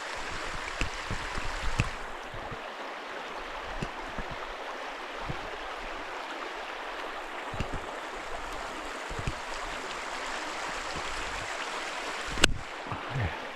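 Steady rushing of a hill stream, with scattered light thumps and a sharp knock near the end.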